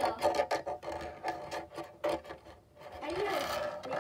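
Handling noise on a phone's microphone: rubbing and scraping with scattered clicks as it is brushed and bumped, busiest in the first couple of seconds.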